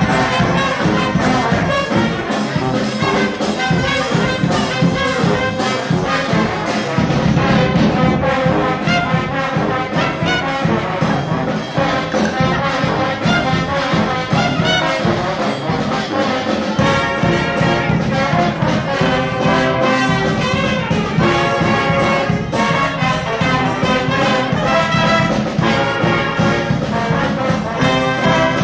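Brass band playing a tune, trumpets and trombones together over a steady beat.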